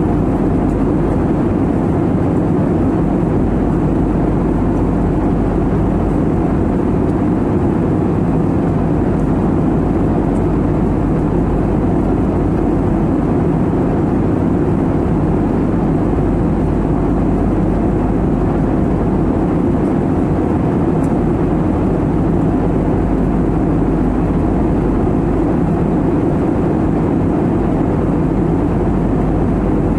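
Steady cabin drone of an Airbus A320-family jet airliner in cruise, heard inside the cabin: an even, deep rush of engine and airflow noise that holds at one level throughout.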